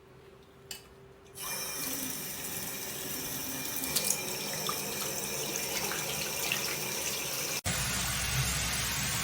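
Waterfall bathroom sink faucet turned on, water running steadily into the basin, starting after a faint click about a second in. Near the end the sound breaks off for an instant and resumes with a deeper rush.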